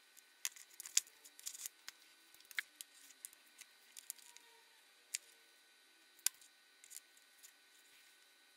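Scattered small clicks and snips of gloved hands working thin electrical wires with a hand tool. The sharpest click comes about six seconds in, and the clicks come closest together in the first two seconds.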